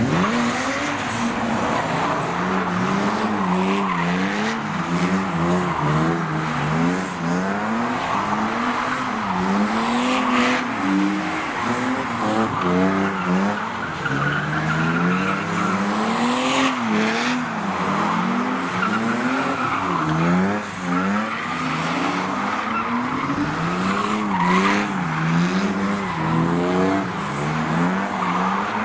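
A drifting car's engine revving up and down over and over, a rise and fall every second or two, while its tyres squeal continuously.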